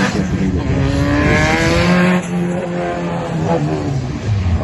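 Drift car's engine revving hard. The pitch climbs for the first two seconds, then drops back and holds, falling lower again near the end.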